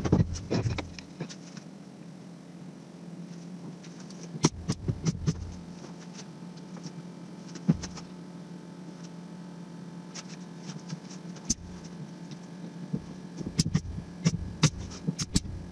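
Wooden ladder-end frame being assembled by hand on a workbench: scattered knocks and clicks of wood pieces fitted and tapped together, in clusters about four seconds in and again near the end. A steady low hum runs underneath.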